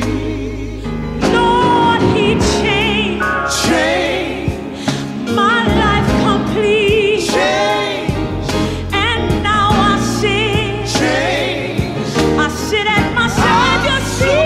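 Gospel song with a solo singer's wordless melismatic runs and heavy vibrato over band accompaniment, with steady bass notes and regular drum strokes.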